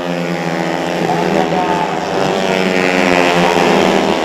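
An engine running steadily, its pitch rising during the second half as it revs up.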